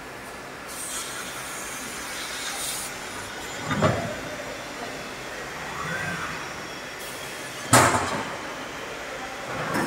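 Fiber laser tube-cutting machine working a steel C-profile: a steady machine hum with hissing. A sharp knock comes about four seconds in, a brief whine rises and falls near six seconds, and a loud sudden bang comes near eight seconds.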